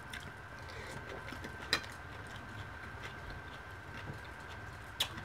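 Close-miked chewing of a mouthful of leafy salad, with small soft crunches. Two sharp clicks stand out, one about two seconds in and one near the end, over a faint steady high-pitched whine.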